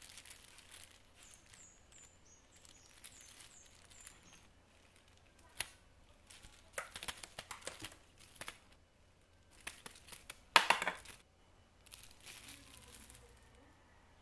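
Rustling and crinkling of things being handled, in irregular short bursts, the loudest about ten and a half seconds in. A few faint, short, high chirps sound in the first few seconds.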